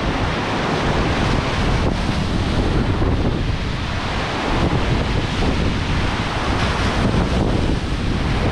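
Ocean surf breaking and washing in rough, whitecapped waves, a steady rushing noise, with strong wind buffeting the microphone in a low, uneven rumble.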